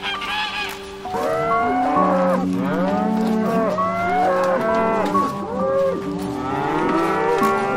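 A herd of Holstein dairy cows mooing, many overlapping calls that rise and fall in pitch, starting about a second in.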